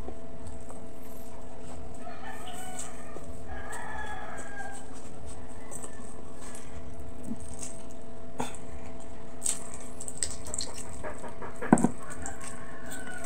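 A rooster crowing in the background over a steady hum. In the second half come small clicks of the pork hock being handled, then two sharp knocks close together near the end.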